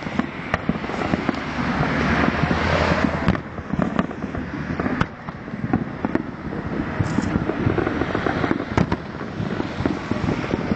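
Fireworks going off in an irregular run of sharp bangs and crackles. Road traffic passes close by, with one vehicle swelling up about one to three seconds in.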